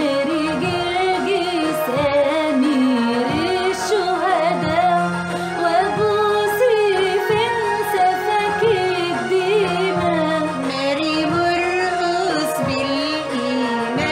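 Female voices singing an Arabic Coptic hymn (tarnima) over instrumental backing with a regular beat.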